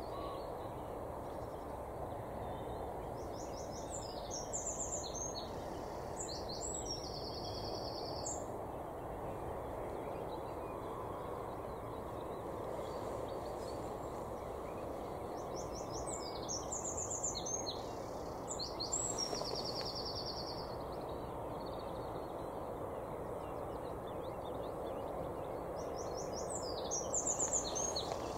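A songbird singing the same short phrase three times, roughly ten seconds apart: a run of quick high notes ending in a longer fast trill, over a steady outdoor background noise.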